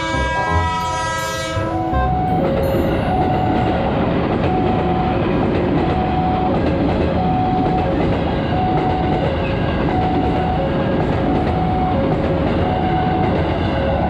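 An electric commuter train sounds its horn for about the first two seconds, then passes close with a steady rumble and clatter of wheels on rails. Throughout, the level-crossing alarm repeats two alternating tones.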